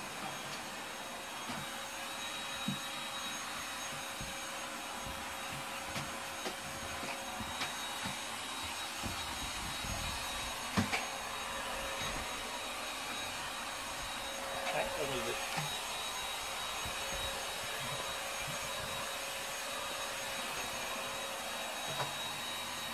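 Vacuum cleaner running steadily, a rushing sound with a high tone in it. Over it a cat crunches dry kibble from a bowl, with scattered small crunches and clicks.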